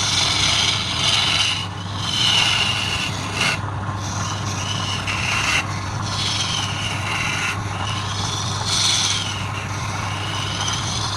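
Wood lathe running with a steady hum while something scrapes against the spinning wooden workpiece, giving a rasping noise with a wavering squeal that swells and fades over a second or two at a time.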